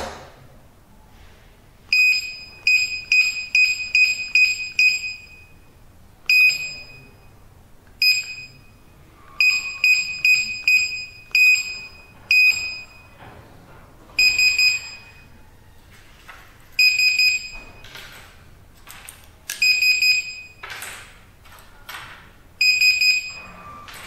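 Access-control keypad's built-in buzzer beeping as its keys are pressed: a quick run of short high beeps about two seconds in, then more short beeps and several longer single beeps a few seconds apart.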